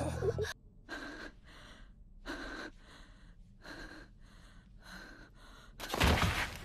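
A boy's heavy, ragged panting, about eight breaths roughly half a second apart, the laboured breathing of a badly wounded, exhausted fighter. Near the end comes one louder, sharp gasp.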